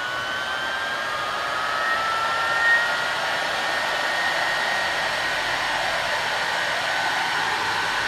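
Vacuum cleaner universal motor speeding up as its Variac knob is turned up: a whine that rises in pitch under a rush of air, levelling off about three seconds in and then running steadily at high speed.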